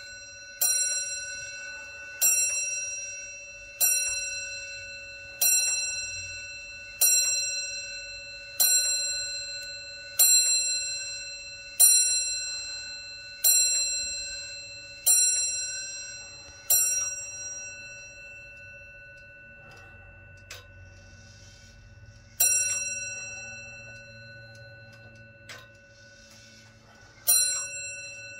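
Hermle wall clock's bell striking the hour in slow, even blows about a second and a half apart, each ringing on into the next. These are the last eleven of twelve o'clock. After a pause of several seconds come two more single strokes about five seconds apart.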